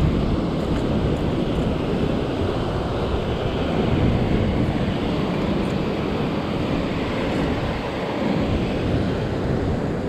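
Heavy surf breaking and washing over a rock shelf, with steady wind buffeting the microphone.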